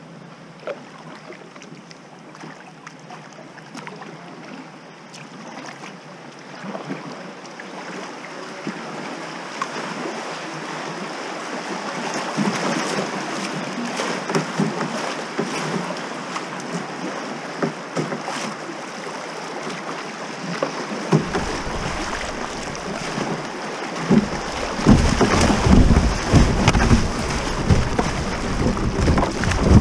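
Rushing water of a shallow river riffle, growing steadily louder as a kayak runs down into it, with water splashing against the hull. In the last few seconds, loud irregular low rumbling buffets join the splashing as the kayak moves through the rough water.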